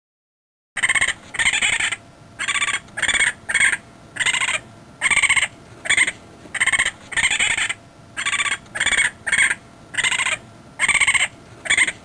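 Raccoon calling: a long run of short, high-pitched chittering calls, each under half a second, repeated about one and a half times a second.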